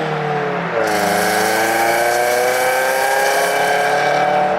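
2001 Ford Focus ZX3's four-cylinder engine accelerating through an aftermarket exhaust quietened by a Cherry Bomb glasspack. The engine note drops at a gear change about a second in, then rises steadily as the car pulls through the next gear.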